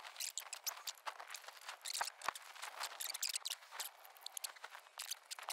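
Tiny ratchet clicking faintly in quick, uneven runs as it turns the Allen bolts that hold the car radio in the dash.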